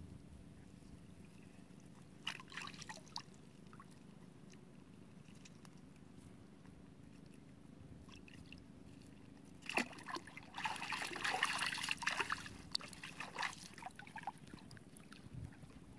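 Water splashing and trickling in two spells: a short one about two seconds in and a longer, louder one from about ten to thirteen seconds in.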